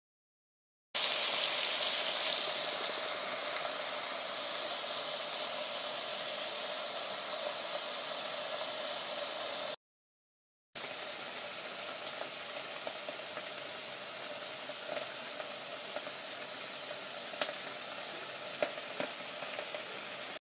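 Chicken strips sizzling in a frying pan, a steady hiss that starts about a second in. After a short gap in the middle, the chicken and mushroom cream sauce simmers in the pan with the same hiss and a few small pops near the end.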